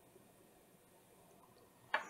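Near silence: faint room tone, with one sharp click just before the end.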